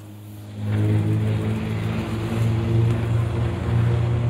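A motor vehicle's engine running, a steady low drone that starts suddenly about a second in.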